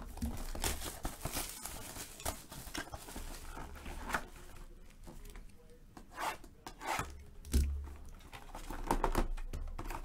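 Plastic shrink-wrap being torn off a cardboard trading-card hobby box and the box opened and handled: scattered crinkles and clicks with a few light knocks.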